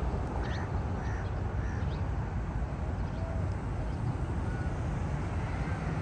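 A handful of short bird calls, most in the first two seconds and a couple later, over a steady low rumble of outdoor background noise.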